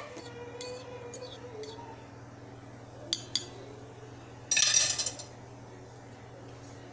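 Metal fork clinking and scraping against a ceramic mug of tea with chia seeds: a few light taps, two sharp clicks about three seconds in, then a louder clatter of metal on ceramic around the middle.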